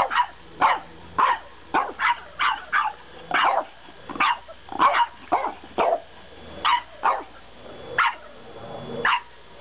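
French Bulldog puppy barking in a quick string of short, high-pitched yaps, about two a second at first and more spaced out later.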